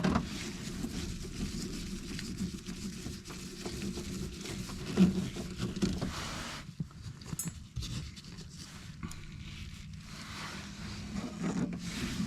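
Hand screwdriver driving fine-thread screws into sheet metal, with irregular rubbing, rustling and small clicks of handling, and one sharper knock about five seconds in, over a steady low hum.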